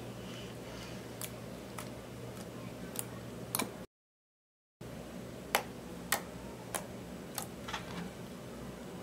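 Clear slime mixed with eyeshadow being pressed and poked with fingers, giving sharp little pops and clicks of trapped air, roughly one every half second, over a low steady hum. The sound cuts out completely for about a second near the middle.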